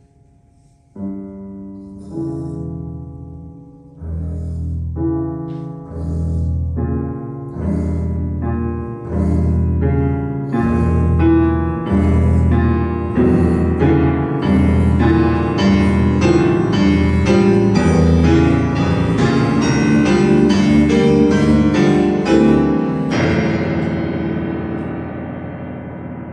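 Piano music: chords that start about a second in, come faster and grow louder, then a final held chord that rings out and fades near the end.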